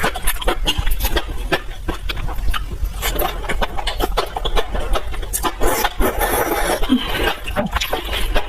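Close-miked eating: chewing and slurping food, a dense run of quick wet smacks and clicks with no break, over a steady low hum.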